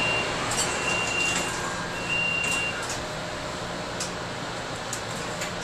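Inside an MBTA Green Line light-rail car: a high electronic beep sounds four times, about once a second, over the steady hum of the car, then stops, leaving the hum with a few light clicks.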